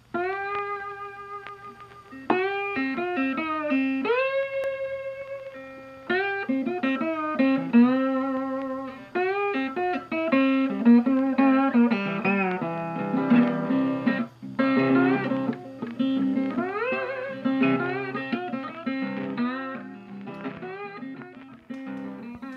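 Instrumental guitar music: a solo guitar playing single notes and chords, several of them sliding up into pitch.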